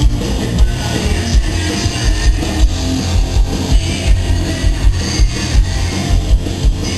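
Hard rock band playing live through concert speakers: distorted electric guitar over heavy bass and a steady drum beat.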